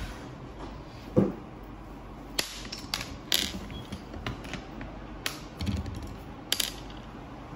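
Scattered mechanical clicks and knocks of plastic and metal parts being handled while a Ricoh MP C306 copier is taken apart, with one loud knock about a second in and a duller thud near the end.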